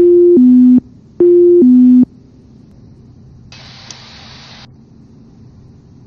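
Autopilot disconnect alert in the Cessna 208 Grand Caravan EX cockpit audio: a two-note falling tone, sounded twice in quick succession, each about 0.8 s long. About three and a half seconds in comes a short burst of hiss lasting about a second.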